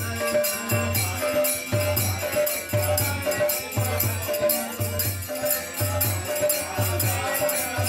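Music with a steady low beat about once a second and jingling, shaker-like percussion over it.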